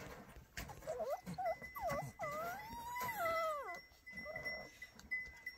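Himalayan sheepdog puppy whining: a few short whimpers about a second in, then one longer whine that rises and falls in pitch and stops about four seconds in.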